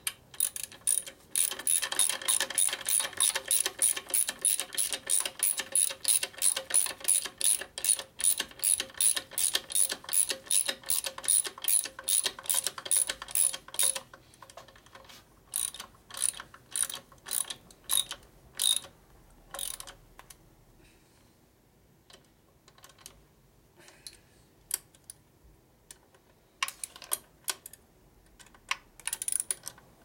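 Hand socket ratchet clicking quickly and evenly as a long mounting screw is run in on a motorcycle starter solenoid. About halfway through it turns to a few scattered clicks, then pauses, with a few more clicks near the end as the screw is snugged down tight.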